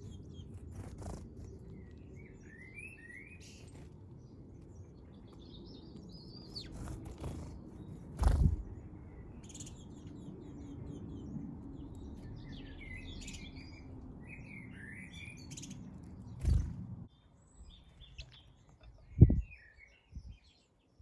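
Garden birds chirping in short, scattered calls over a low steady rumble that drops away near the end. Three dull thumps stand out louder than the birds.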